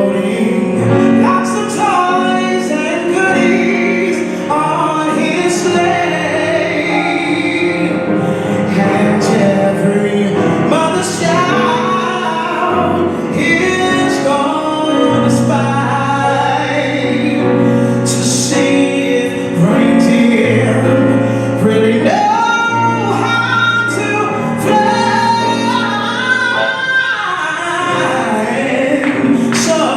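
Live symphony orchestra playing with singing voices, among them female voices, in a sustained, continuous passage with held bass notes.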